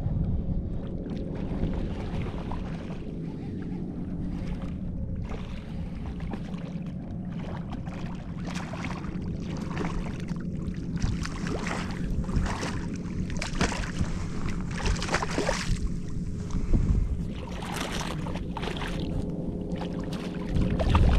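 Wind buffeting the microphone, with shallow bay water splashing and sloshing around a wading angler in many short bursts, thickest through the middle, over a faint steady hum.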